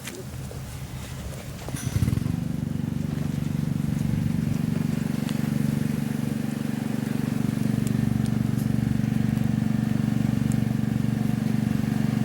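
Small engine of a portable fire pump starting about two seconds in, then running steadily to pump water into the fire hose.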